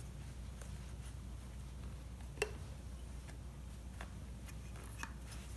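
A few faint clicks and taps of hands handling parts on a nitro RC truck while refitting its tuned pipe, the sharpest about two and a half seconds in, over a low steady hum.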